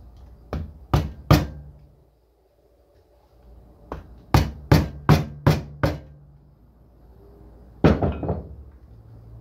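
Wooden mallet tapping a Bose cube speaker's housing to seat its freshly super-glued halves. There are three sharp knocks, a pause, then a run of five knocks about three a second, and one last knock near the end followed by a short rattle.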